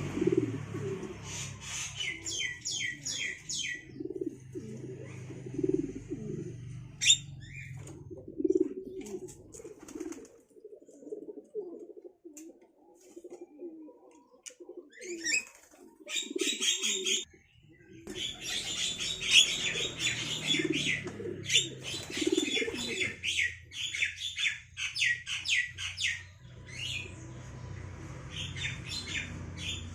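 Domestic pigeons cooing over and over, with runs of rapid high chattering calls from Javan mynas. The chattering comes in bursts, with a quieter spell in the middle.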